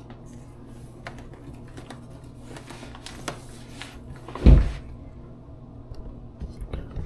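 Scattered light clicks and handling noises over a steady low hum, with one heavy thump about four and a half seconds in.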